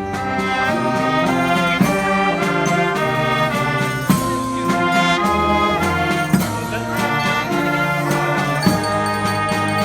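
Street band playing live: brass horns such as trumpets and trombones sound held notes together in harmony, changing every half second or so, over sharp percussion hits.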